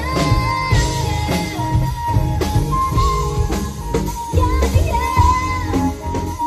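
Live band music with drum kit and guitar, a held melody line sliding between long sustained notes over the backing.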